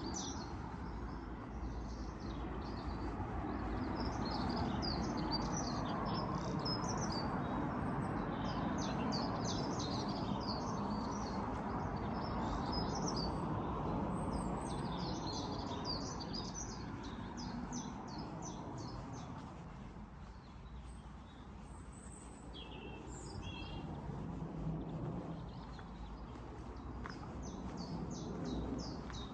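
Small birds chirping and singing in quick, repeated high notes throughout, over a low background rumble that swells and fades.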